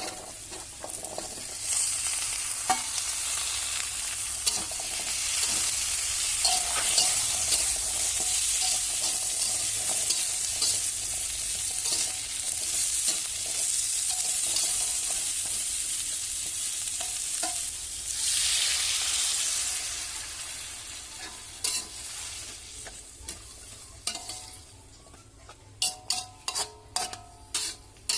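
Vegetables for a stir-fry sizzling in hot oil in a pan while being stirred. The sizzle dies down about twenty seconds in, and a quick run of sharp clicks follows near the end.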